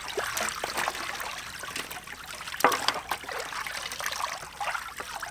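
Raw chicken feet being washed by hand in a large metal basin of water: water sloshing, dripping and trickling, with many small splashes and clicks and one louder splash about two and a half seconds in.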